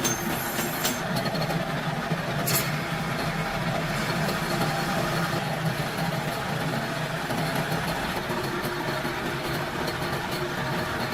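Small gasoline engine running steadily at idle, with a sharp click about two and a half seconds in.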